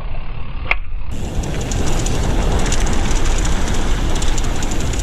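Mountain bike coasting down a rough dirt trail: tyre rumble, wind on the handlebar-mounted camera and a steady clatter from the bike, a little louder from about a second in.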